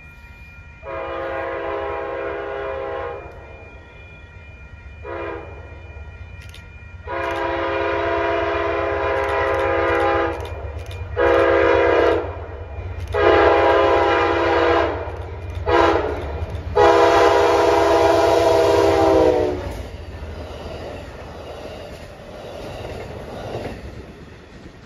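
Amtrak P42DC diesel locomotive sounding its multi-chime air horn in seven loud blasts, long and short in turn, the pitch dropping slightly at the end of the last one as it draws level. Under the horn and after it is the low rumble of the approaching train.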